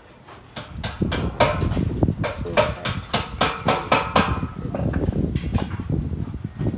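Hammer strikes driving connecting pins into metal stage truss. A quick run of sharp metallic blows, about four a second, lasts from about a second in until about four seconds in, then fewer and lighter knocks follow, over a low rumble.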